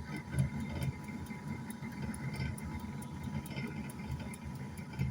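An old air fryer running with an uneven low rumbling noise and faint ticking, a strange noise that points to a fault its owner cannot identify.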